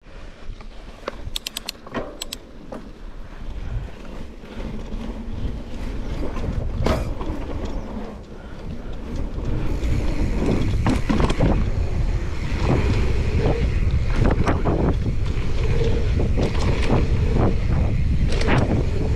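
A mountain bike ridden fast on a dirt trail: wind buffeting the camera microphone and the tyres rumbling, with scattered clicks, knocks and rattles from the bike over bumps. The rush grows louder about ten seconds in as speed picks up.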